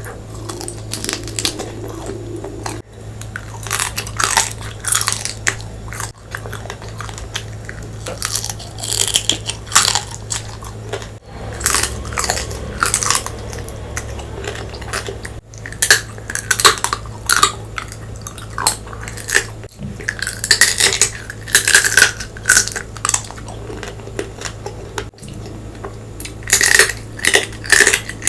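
Close-miked eating of crab curry, fried fish and rice: wet chewing and crunching with frequent sharp clicks of dishes, over a steady low hum.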